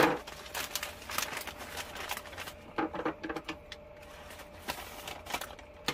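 Polythene mailing bag crinkling and rustling in irregular short crackles as it is handled and cut open with scissors, with a sharp snap at the start.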